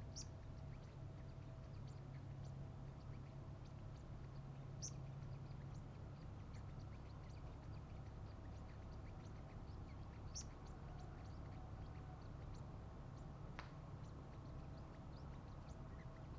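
Sunbird giving faint, high, thin chirps, scattered irregularly, with three louder calls about five seconds apart, over a steady low hum.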